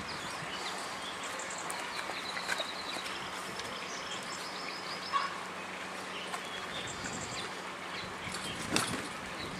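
Birds chirping over a steady outdoor hiss, with a few sharp clicks and knocks as a bicycle is unlocked and taken from a bike rack, the loudest about halfway through and near the end.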